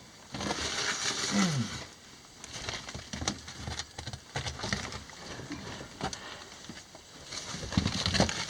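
Footsteps crunching on loose rock and gravel in a mine tunnel, with clothing and gear rustling; the rustle and crunching are heaviest about a second in and again near the end.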